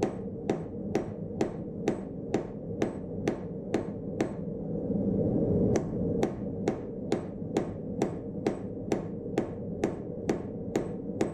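Hand hammer striking hot steel on a small anvil in an even rhythm of about two blows a second, each blow ringing briefly. The blows pause for about a second and a half near the middle, then resume. A steady rushing noise runs underneath and grows louder during the pause.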